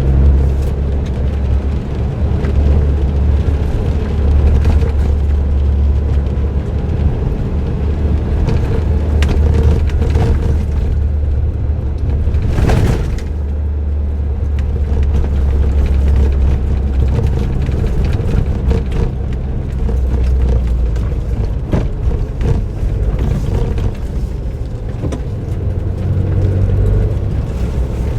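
Suzuki Jimny JB23W, with an aftermarket muffler, driving along: a steady low drone of its 660 cc turbocharged three-cylinder engine and road noise, with one sharp knock a little under halfway through.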